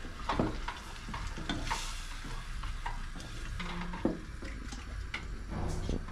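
A spoon stirring a pot of tomato sauce on the stove, scraping and knocking now and then against the pot, over a steady sizzle of cooking.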